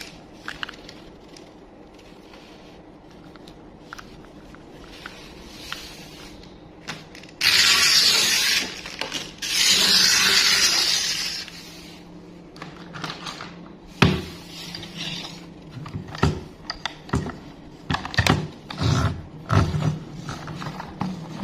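Toy packaging being handled and opened. There are two long, loud rustling rips about eight and ten seconds in, then a run of small clicks and knocks.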